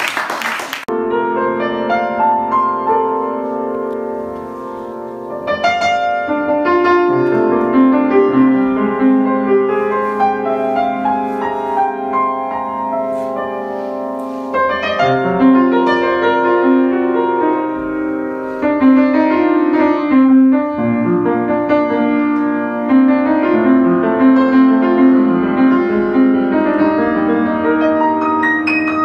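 Upright piano playing a piece on its own, single notes over sustained chords. A brief burst of noise comes at the very start.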